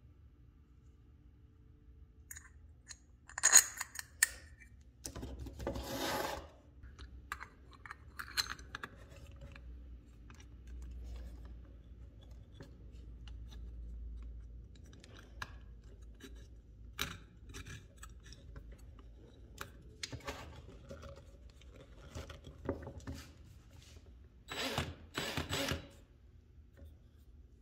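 Workbench handling of small metal parts: clicks, taps and short scrapes as a bolt is fitted through a chrome flashlight head and the assembly is tightened into a cordless drill's chuck, with one sharp clack a few seconds in. Near the end the drill spins briefly in two short bursts, testing the improvised polishing mandrel.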